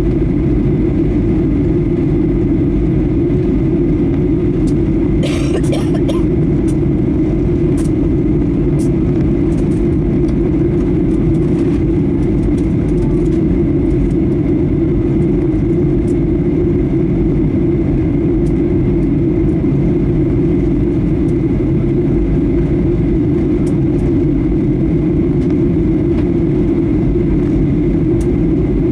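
Steady cabin noise inside a Boeing 737-800 descending: a deep, even rumble of airflow and the CFM56-7B engines. A short hiss cuts in about five seconds in.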